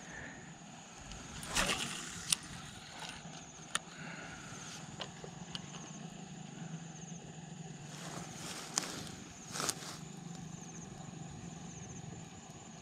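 Quiet pond-side ambience with a faint, steady low hum, broken by a few sharp clicks and brief rustles as the spinning rod and reel are handled; the loudest rustles come about a second and a half in and again near ten seconds.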